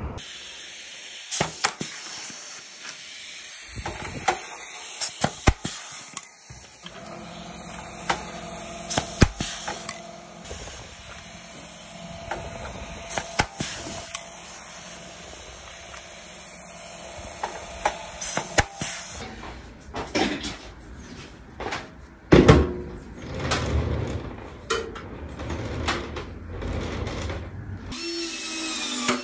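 Workshop assembly work: a power tool running in spells, among many knocks and clicks of parts being handled and fitted.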